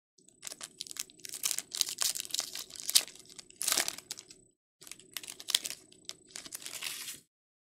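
Foil wrapper of a 2024 Bowman baseball card hobby pack crinkling and tearing as it is ripped open by hand, in two stretches of crackle with a short break about halfway through.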